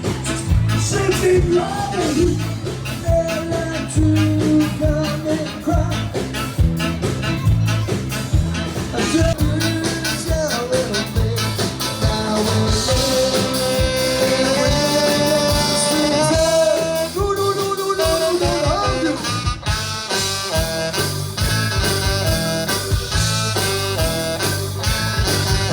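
Music with a steady beat and a strong bass line, with a melody that moves up and down.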